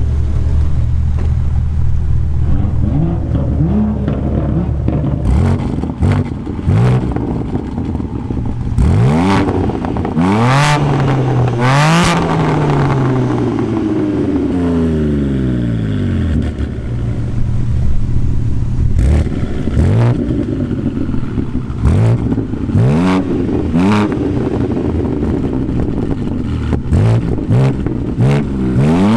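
BMW M3 G80 Competition's twin-turbo straight-six through a titanium R44 performance exhaust, idling and being revved, the pitch climbing and falling back, with many sharp pops and crackles.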